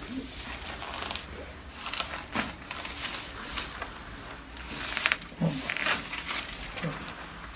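Chiropractic adjustment on a treatment table: rustling and shifting of the body and clothing, a few short sharp clicks, the loudest about five seconds in, and brief low grunts from the patient.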